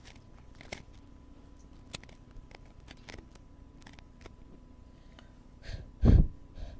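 Wooden ear pick scraping and tapping in the ear of a binaural microphone: sparse, short scratchy clicks, then a loud low bump about six seconds in as the microphone is knocked.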